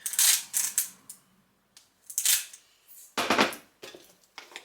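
Kitchen handling noises: a handful of short scraping, crunching bursts as more salt is added and worked into a bowl of protein cookie dough.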